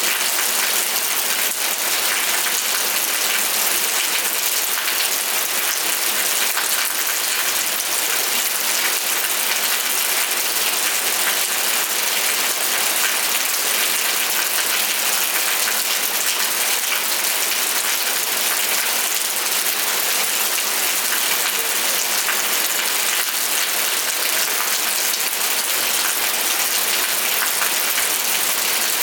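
Steady rain falling, a dense, even hiss of many small drops with fine crackling ticks in it.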